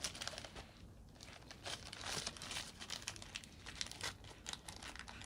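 Plastic packaging crinkling and rustling as it is handled, in irregular crackles and rustles.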